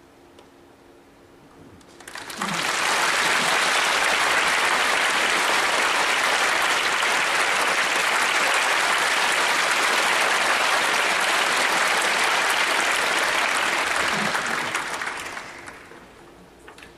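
Audience applause that starts about two seconds in, holds steady, and dies away near the end.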